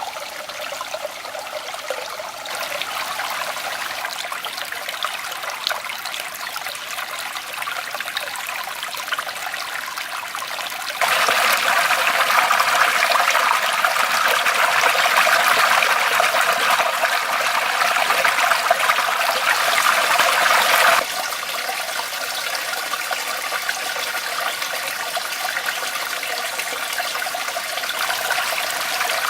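River water rushing and splashing steadily. It jumps abruptly louder about eleven seconds in and drops back just as suddenly about ten seconds later.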